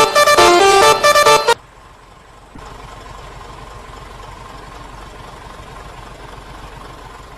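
Bus telolet horn, a basuri multi-tone horn, playing a quick melody of stepping notes that cuts off abruptly about a second and a half in. After it, a much quieter low, steady hum of the bus engine idling.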